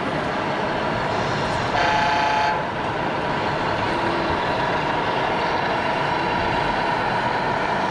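A horn toots once, a little under a second long, about two seconds in, over a steady din of running machinery.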